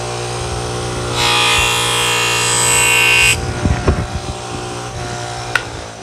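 Small bench grinder motor running with a steady hum. A little over a second in, a pocket knife blade is pressed to the spinning buffing wheel, giving a hissing rasp for about two seconds while the edge is polished. The blade then comes off the wheel, followed by a few light knocks.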